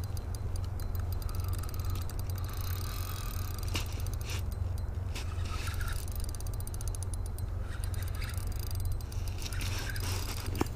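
Spinning reel clicking in rapid bursts as it gives and takes line from a large hooked lake trout, over a steady low wind rumble on the microphone.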